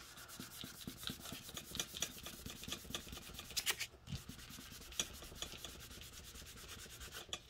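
A small white pad rubbed over a sheet of printed paper lying on a cutting mat in many short, scratchy strokes, a few swipes louder than the rest, blending a smattering of yellow and orange color into the page.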